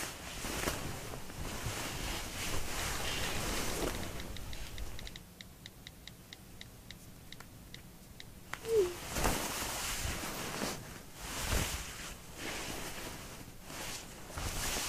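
Bed covers rustling, then a run of light phone keyboard clicks, about three a second, as a text is typed, a short falling blip, and more rustling of the covers.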